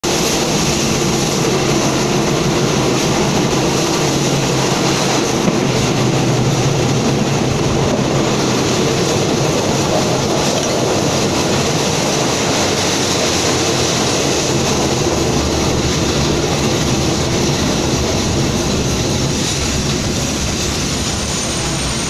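Passenger train running on the rails, heard from an open coach door: a steady, loud rush of wheel-and-rail noise and wind. It grows a little quieter near the end as the train slows at the platform.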